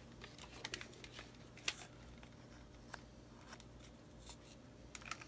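Faint, scattered clicks and taps of a thin cedar strip being handled and pressed onto brads set in a wooden spindle, about one click every second or so, over a low steady hum.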